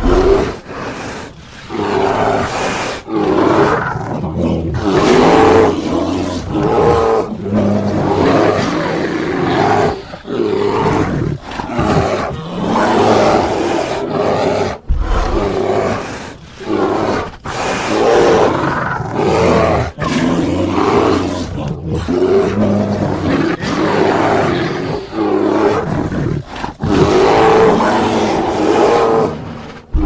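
Bear roaring and growling over and over in rough calls of a second or two each, with only short breaks between them.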